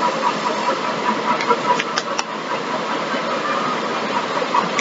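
Steady background hiss, with a few short clicks and rustles about two seconds in from a brass ball valve's packaging being handled as it is taken out of its box.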